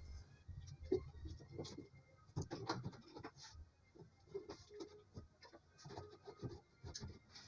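Light, irregular clicks, taps and small rustles of hands handling parts and tools, with no steady sound beneath them.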